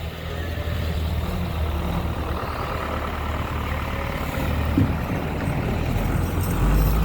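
Engine of a snow-clearing machine running steadily with a low drone, growing louder near the end, with a brief knock about five seconds in.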